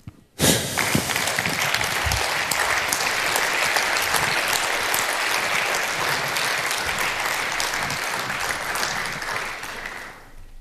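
Audience applauding in a large lecture hall, starting suddenly about half a second in, holding steady, then dying away near the end.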